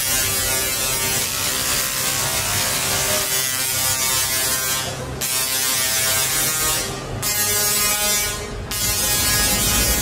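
Tesla coil discharging: a harsh electric buzz with steady pitched tones in it, which breaks off briefly about five, seven and eight and a half seconds in.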